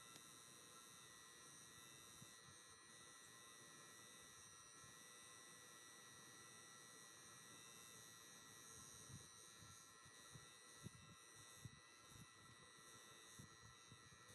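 Near silence: a faint steady hum and hiss, with soft, irregular low thumps in the second half.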